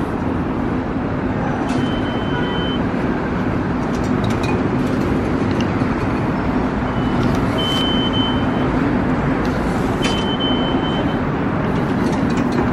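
Three high electronic beeps from turnstile fare-card readers, each lasting about a second, with light clicks as the turnstile arms turn, over a loud steady low hum.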